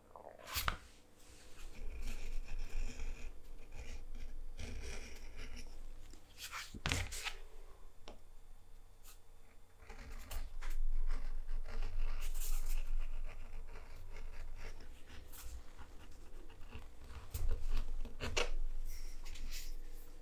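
Edge beveler shaving the edge of a piece of leather: repeated short scraping strokes in patches, with three sharp knocks along the way.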